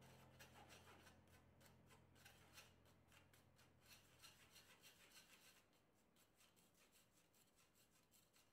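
Wooden spoon rubbing flour through a fine wire-mesh sieve: faint, quick, repeated scraping strokes, fading over the last few seconds.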